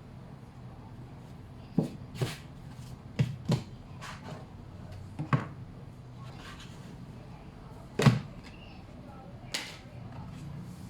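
Irregular knocks and thuds, about eight of them spread across several seconds, as bread dough is handled and folded and its container is moved about, over a low steady hum.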